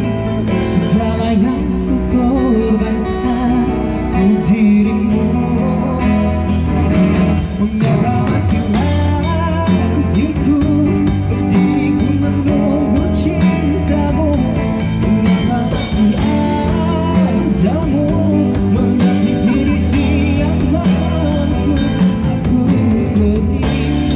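Live busker band: a man singing into a microphone, backed by strummed acoustic guitars, amplified through portable speakers.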